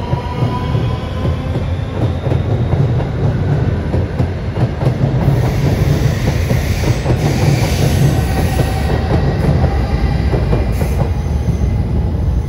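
Red-and-white Lastochka (Siemens Desiro RUS) electric train running past close by and pulling away. Its motors whine, rising in pitch in the first second, over a loud rumble and clatter of wheels on the rails.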